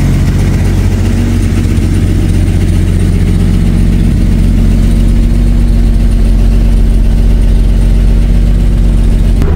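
1958 Chevy Apache pickup's engine idling steadily, heard from inside the cab.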